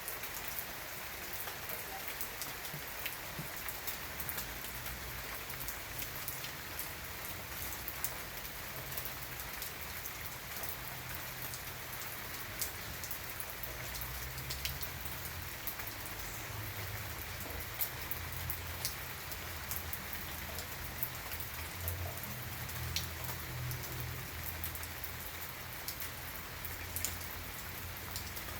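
Steady rain falling: an even hiss scattered with sharp ticks of single drops hitting a surface.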